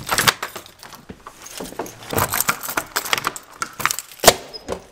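A bunch of keys jangling in hand, with the clicks and knocks of a door handle and a deadbolt lock being worked. The sharpest click comes a little after four seconds in.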